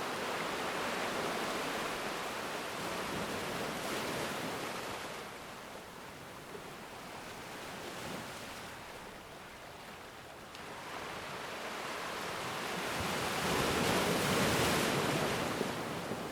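Ocean waves washing on a shore: a steady surf hiss that swells and ebbs, easing off in the middle and building to a loud wave near the end.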